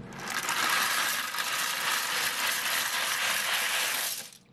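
Dry elbow macaroni pouring out of a cardboard box into a slow cooker of chili: a steady rattling rush that stops abruptly near the end.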